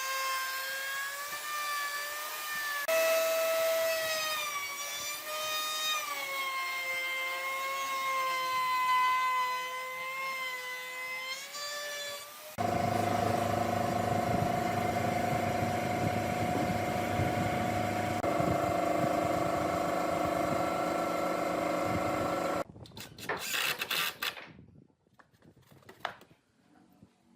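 Electric power tool motor whining, its pitch wavering and dipping as it works the wood. About halfway through it gives way to a steadier motor tone, which stops about three seconds before the end, leaving a few faint clicks.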